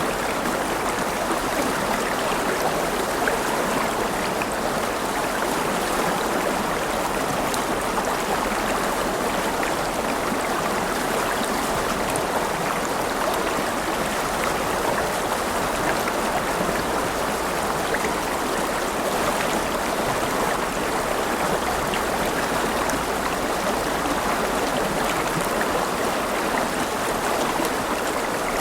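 River water flowing steadily over stones, a continuous rushing babble with small splashes.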